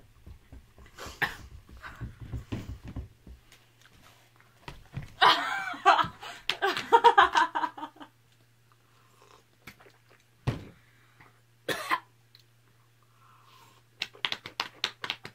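Young women coughing and laughing with their mouths burning from hot chillies: short breathy bursts at first, a long loud bout of laughing in the middle, then two sharp single coughs, and quick laughter again near the end.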